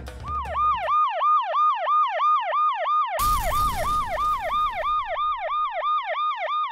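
Fast yelping emergency siren, its pitch sweeping up and down about four times a second. A little over three seconds in, a sudden boom with a rumbling tail joins it and fades away over a second or so.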